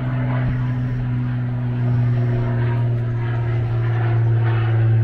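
Single-engine Cessna 182S Skylane, with its six-cylinder Lycoming engine and propeller, droning overhead as a steady low hum that grows slightly louder.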